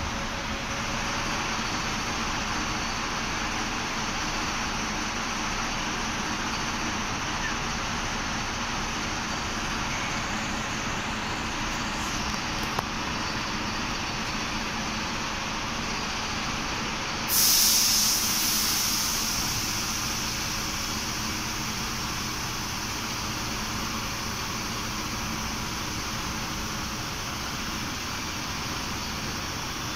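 Steady background noise with a faint hum, broken about seventeen seconds in by a sudden loud hiss of released compressed air that fades away over two or three seconds.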